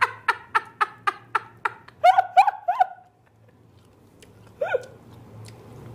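A person laughing in a fast run of short, pitched bursts, about four a second, fading out; then three louder single bursts about two seconds in and one more near the end.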